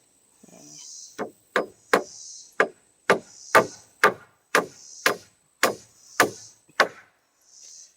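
Hammer driving nails into wooden blocking boards set between shed floor joists: about a dozen sharp strikes, roughly two a second.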